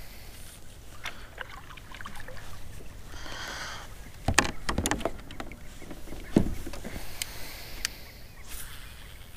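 Paddle and fishing gear knocking against the hull of an Ascend FS12T plastic kayak while being handled, a few sharp knocks and clatters with the loudest about four and a half and six and a half seconds in, and a short rasp about three seconds in.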